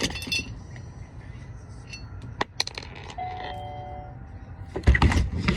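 Small metal items clinking and clicking as they are handled, then a heavier knock and rustle near the end.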